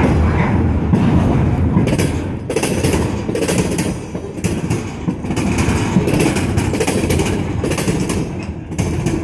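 Empty flatcars of a freight train rolling past, the steel wheels clacking over the track about twice a second over a steady low rumble.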